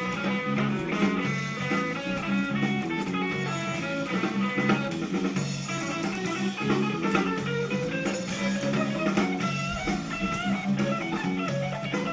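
A trio rehearsing: an electric bass guitar plays a steady line under guitar parts, with drums keeping the beat.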